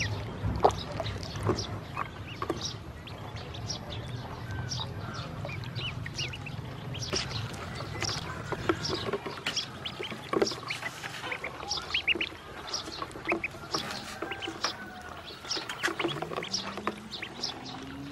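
A group of ducklings peeping, many short high peeps overlapping throughout, with small splashes as they paddle in shallow water in a plastic tub. A low rumble runs under the first half and stops about halfway through.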